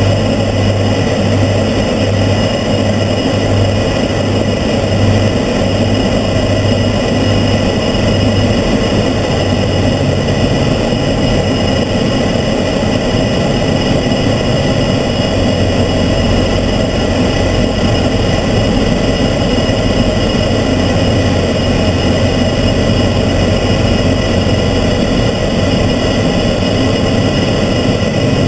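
Transall C-160's two Rolls-Royce Tyne turboprop engines and propellers droning steadily in flight, heard inside the cockpit. A low hum pulses about once a second for the first eight seconds or so, then holds steady.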